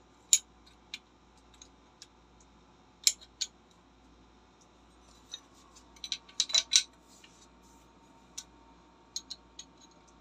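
Small spray gun parts clicking and clinking as they are handled and fitted by hand: scattered sharp clicks, with a quick run of them about six to seven seconds in.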